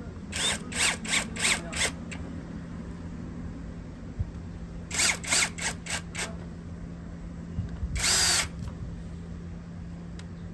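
Power screwdriver driving the housing screws into a hand drill's plastic casing. Its motor spins in short bursts: five quick pulses, then another run of about five, then one longer run near the end.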